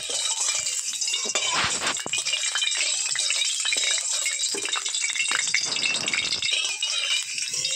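Mustard oil heating in a metal kadai, crackling and sizzling steadily with many small sharp pops, while a metal spatula scrapes and stirs through it. The oil is coming up to frying heat.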